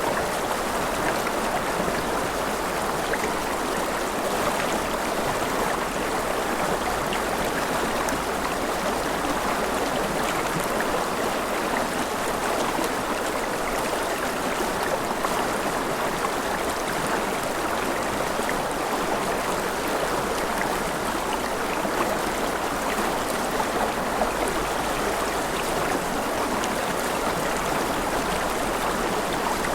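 Mountain river running over rapids: a steady rush of water with fine splashes and gurgles, unbroken throughout.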